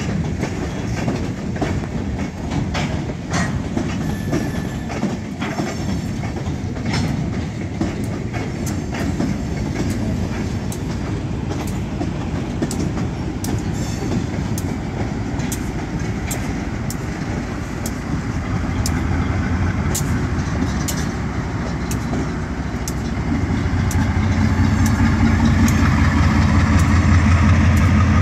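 Freight cars rolling past on jointed track, a steady wheel rumble with scattered clicks and clanks. Over the last several seconds a diesel locomotive's engine drone comes in and grows louder as the locomotive passes, putting up dark exhaust smoke under load.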